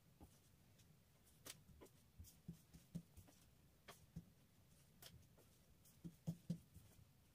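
Faint, irregular light taps and knocks of a long thin wooden rolling pin (oklava) rolling and pressing a sheet of hand-rolled baklava dough on a floured wooden tabletop, with a couple of sharper knocks about six seconds in.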